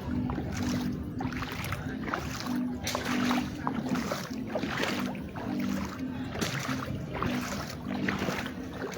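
Music playing, a simple line of short held notes, over a steady rushing noise.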